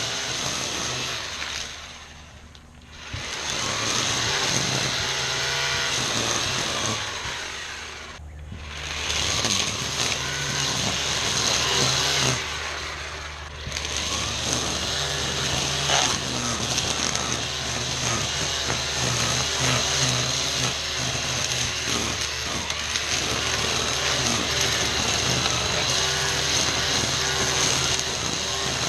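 ECHO 58-volt battery string trimmer running and cutting through tall weeds and grass, with a steady high motor whine. The whine eases off briefly twice, about two and a half seconds in and again about eight seconds in, then picks back up.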